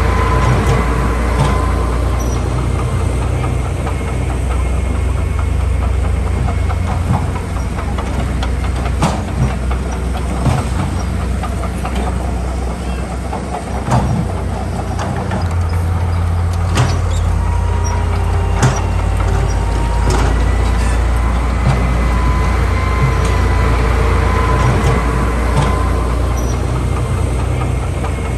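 Heavy diesel earthmoving machinery running under load: a steady low engine rumble with a faint steady whine and scattered metallic clanks and knocks.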